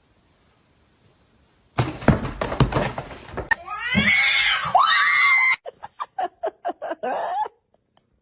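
A cat crying: loud meows that rise and fall in pitch, followed by a run of short, choppy cries. A burst of clattering, scuffling noise comes just before the cries, after a near-quiet opening.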